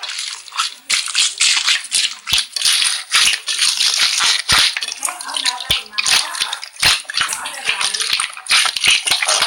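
Slime being squished and worked by hand: a steady run of wet clicks and crackling pops.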